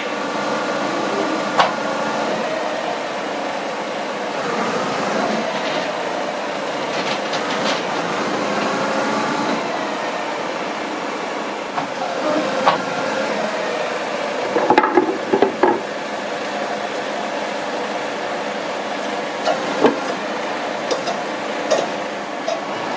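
Steady mechanical running of a heavy-transport truck's machinery, with sharp metallic clanks now and then and a short cluster of them about fifteen seconds in.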